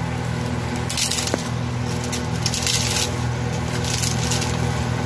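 Hard, deep-fried wheat puris snapped and crumbled by hand over a steel plate: a few bursts of crisp cracking crunches, the sign that the puris have set hard enough to crush for churma. A steady low hum runs underneath.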